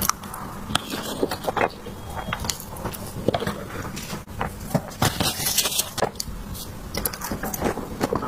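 Close-miked eating sounds: chewing of soft dessert with frequent small wet clicks and smacks from the mouth.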